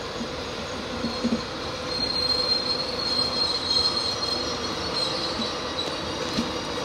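Wheels of a slow-moving LNER passenger train squealing on the rails, a high whine that sets in about a second in and wavers, over a steady low hum, with a few low knocks about a second in.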